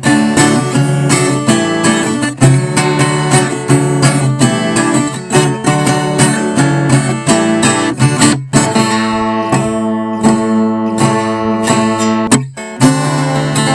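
Viola caipira, the Brazilian ten-string folk guitar, played as an instrumental: quick plucked and strummed notes, with two brief breaks, about eight and a half and twelve and a half seconds in.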